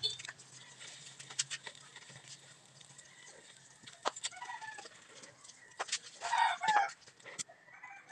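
A chicken calling, loudest in a short call about six seconds in, with a fainter call a little after four seconds. Scattered light clicks and taps sound between the calls.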